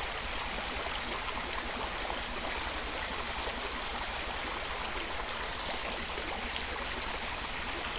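Shallow stream running over rocks, a steady rush and babble of water.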